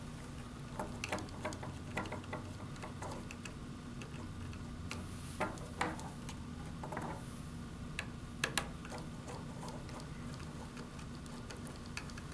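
Scattered small clicks and taps as wire leads are fitted into a screw terminal block on a DC motor drive, over a steady low hum.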